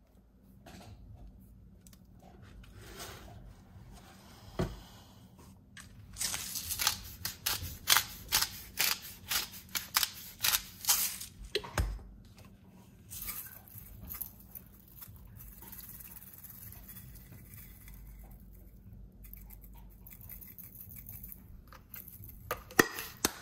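Pepper grinder being twisted over meat in a cast iron skillet: a run of crisp crunching clicks, about two a second for some five seconds, with a few more near the end. A couple of dull knocks in between.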